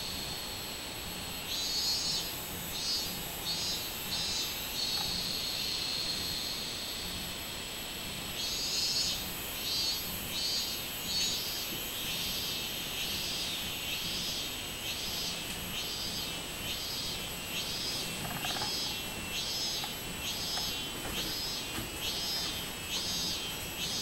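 Robust cicadas (minmin-zemi) singing in the trees: a steady high buzz breaks into a run of repeated pulsing 'meen' notes, about one and a half a second. It goes back to a steady buzz for a few seconds, then pulses again for the rest.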